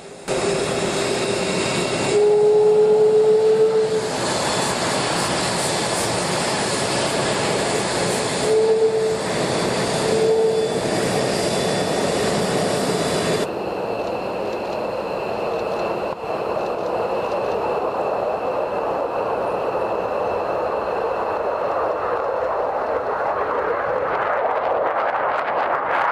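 Jet engines of an F-22 Raptor, its twin Pratt & Whitney F119 turbofans: a steady rush with a high whine while the fighter taxis. About halfway through the sound changes to a more distant jet rumble that grows louder toward the end as the jet takes off.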